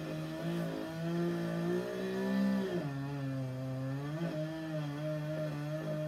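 Two-stroke chainsaw cutting down a star pine, running continuously, its engine pitch dropping about three seconds in and climbing back up about a second later.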